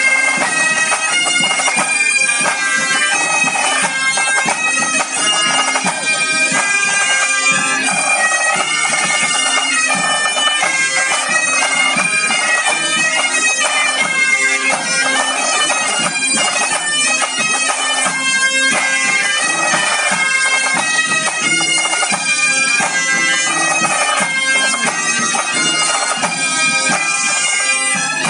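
A Breton bagad playing live: Highland bagpipes with their steady drones and bombardes carry the tune together, over snare and bass drums.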